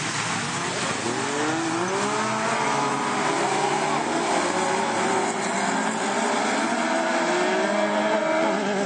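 A pack of autocross buggies racing, several engines revving hard at once, their pitches climbing and dropping as they shift up through the gears and overlapping one another.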